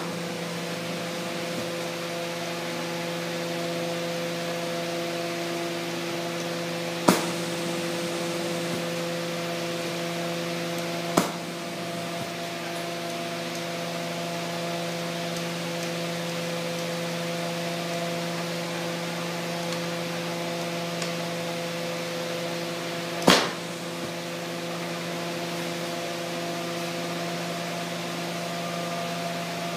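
Steady hiss of a glassworking torch over a steady hum, broken by three short sharp clicks several seconds apart.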